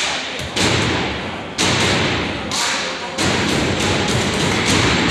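Heavy thuds over loud crowd noise in a basketball gym. A few big thuds come in the first three seconds, then a quicker run of about three a second near the end.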